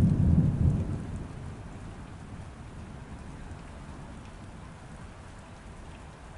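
A roll of thunder rumbling low and dying away over the first second or so, leaving steady rain falling.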